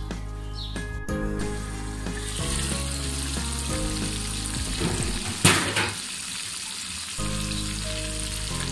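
Hilsa steaks shallow-frying in mustard oil: a steady sizzle of bubbling oil that grows louder about two seconds in, with one louder sudden burst about halfway through.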